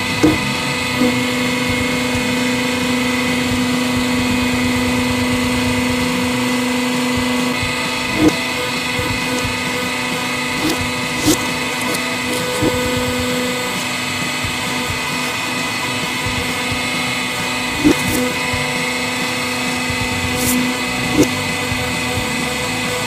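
Hydraulic press running with a steady hum as its guillotine blade presses down through two Duracell AA batteries, with several short sharp cracks as the battery casings give way.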